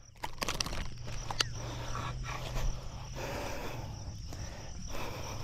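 Grass rustling and swishing as a hooked snakehead is dragged and thrashes through it, in uneven surges, with a few sharp clicks about half a second in.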